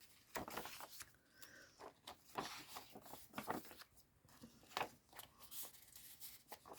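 Faint rustling and light ticks of paper pages and tucked tags being handled and turned in a handmade journal.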